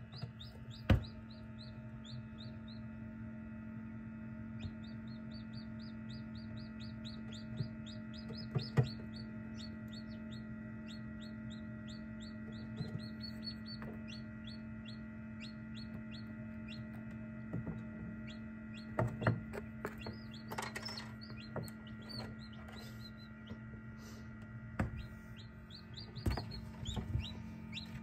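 Newly hatched chicks peeping inside an egg incubator: runs of short, high chirps at about five a second, stopping and starting, over the incubator's steady hum. A few sharp knocks stand out, the loudest about a second in and near nine seconds.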